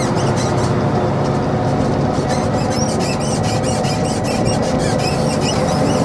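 Concrete mixer truck's diesel engine running steadily while driving, heard from the cab with road noise and a scatter of short, high squeaks throughout.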